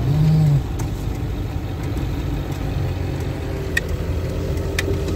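Converted ambulance van's engine and road noise heard from inside the cab, driving slowly and turning. A short low hum from a man's voice comes right at the start.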